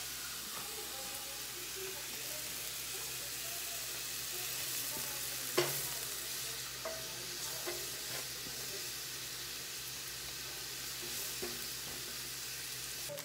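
Sliced mushrooms sizzling in a nonstick frying pan, stirred and scraped around with a silicone spatula, with one sharp knock of the spatula against the pan about five and a half seconds in.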